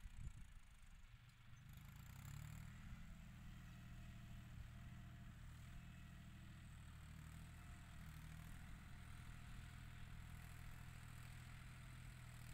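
Faint, steady running of a John Deere 5045 tractor's diesel engine working at a distance as it pushes soil, a low hum that grows a little stronger about two seconds in.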